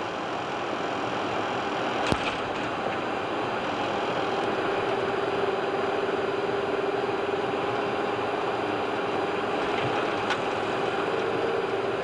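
Airbus A330-300 flight-deck noise through touchdown and landing roll: a single sharp thump about two seconds in as the main wheels meet the runway, then a steady rushing noise that grows slowly louder, with a steady hum joining from about four seconds in.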